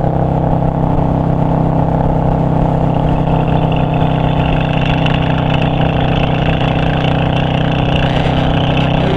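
Yamaha V-Star 650's air-cooled V-twin engine running at a steady cruising speed, its note holding an even pitch with no revving, heard from the rider's seat along with rushing noise at speed.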